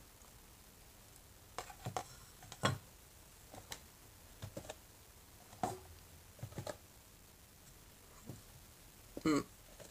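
Light, scattered clicks and taps of a tiny plastic miniature table and small cardboard boxes being handled and set down on a tabletop, with a brief louder sound near the end.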